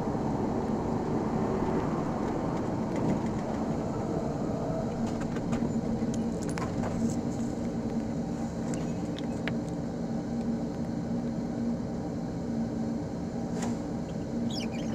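A car driving, its engine and road noise running steadily, with a few light clicks or rattles.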